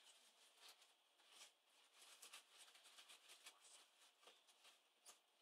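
Near silence with faint, irregular light scratching and rubbing: a cotton swab wiping old thermal paste off a chip on a laptop motherboard.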